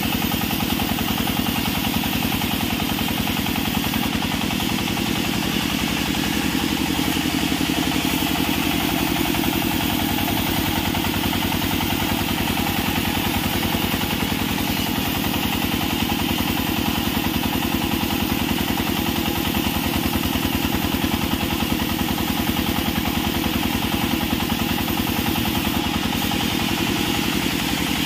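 Large vertical band sawmill running steadily while a long wooden plank is ripped lengthwise through its blade: an even, engine-like drone with a fast regular pulse that holds without a break.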